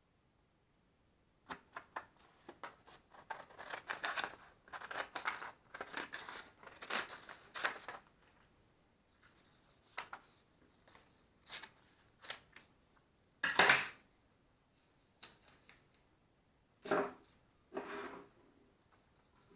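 Irregular scraping, rustling and clicking from hands working on small objects, with a sharper loud scrape about two-thirds of the way through and two more short ones near the end. No motor is running.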